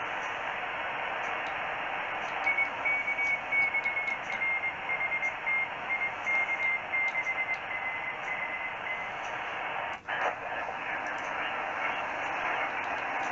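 Si473x multiband receiver tuned in USB, giving steady shortwave hiss. A CW tone beeps on and off through it, its pitch slowly falling as the BFO is stepped down. About ten seconds in, the audio drops out briefly with a click as the receiver jumps frequency, and the hiss returns.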